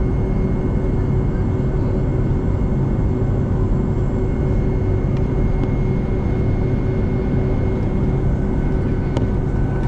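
Steady cabin drone of a Boeing 757-200 taxiing, its engines at taxi power, heard from inside the cabin, with a faint steady whine over the rumble. A couple of faint clicks come near the end.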